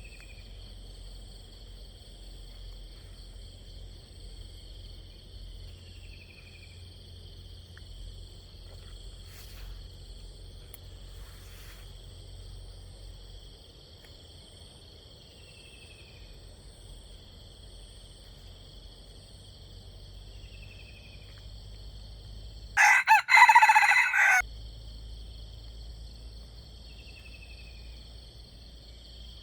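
A rooster crows once near the end, a short, loud crow of about a second and a half. Beneath it run a steady high drone of insects and a small bird's brief falling call, repeated every few seconds.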